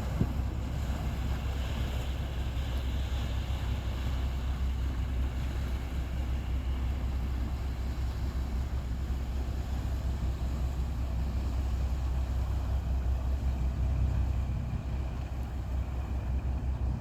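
Fishing boat engine running steadily, a low drone.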